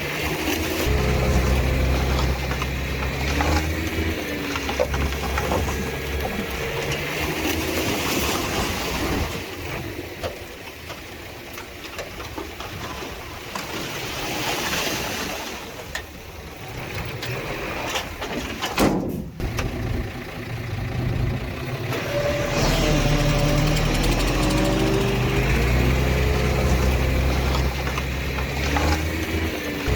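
Diesel engine of heavy earthmoving machinery running with a deep rumble, strong at first, easing off in the middle, and building again about two-thirds of the way through. Short squealing sweeps come and go over it several times.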